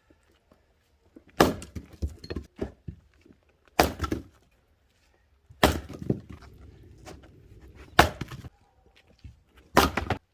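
Axe splitting oak firewood logs: five sharp strikes about two seconds apart, each a crack followed by a short clatter of wood.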